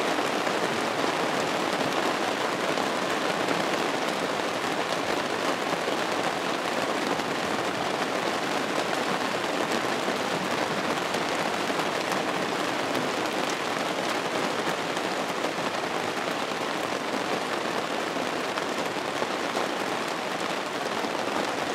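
Heavy, driving rain falling, a steady, even hiss.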